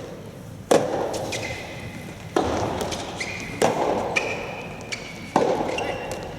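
Soft tennis rally: rackets striking the soft rubber ball about four times, roughly one and a half seconds apart, each hit echoing in a large hall, with short squeaks of court shoes between hits.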